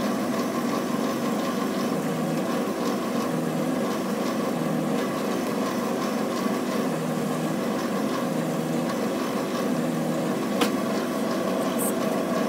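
Countertop electric meat cuber (steak tenderizer) running with a steady motor hum while a slice of beef top round passes through its blade rollers to become Swiss steak; one sharp click about ten and a half seconds in.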